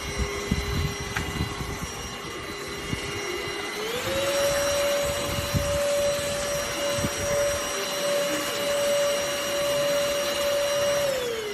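ENOLUX ST7000 cordless handheld vacuum cleaner running with a steady whine. About four seconds in its pitch steps up and it runs louder, then near the end it winds down as the motor switches off. A few low knocks from handling come through.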